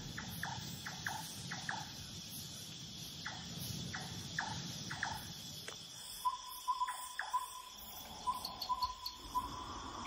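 Tropical night ambience: insects trilling steadily at a high pitch. In the first half, short falling chirps come about every half second over a low rumble. In the second half, a run of brief beeping notes sounds, all at one pitch.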